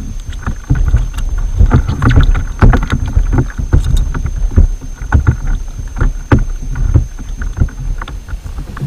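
Irregular knocks and taps on a plastic fishing kayak's hull and fittings while a string of horse mackerel on a sabiki rig is reeled in and swung aboard, over a low wind rumble on the microphone. A faint steady high whine runs until shortly before the end.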